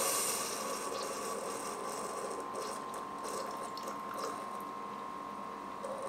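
Ninja DualBrew Pro coffee maker finishing a single-serve brew: its pump runs with a steady whine and light mechanical ticking, while the coffee stream hissing into the mug dies away in the first few seconds.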